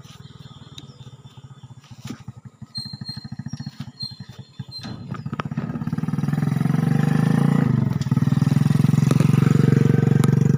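Motorcycle engine running while riding, with a fast, even firing pulse that gets much louder about halfway through.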